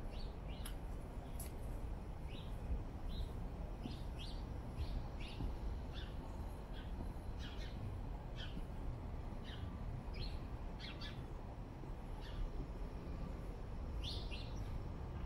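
Small birds chirping: short, high chirps, one or two a second, over a steady low rumble of city background.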